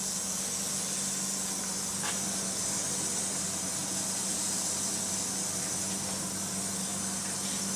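Fuel-injector cleaning machine running: a steady high hiss over a low, even hum.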